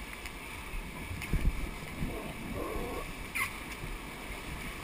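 Whitewater rapid rushing and churning around a raft, a steady roar of white water. A couple of low, dull thumps stand out about a second and a half in.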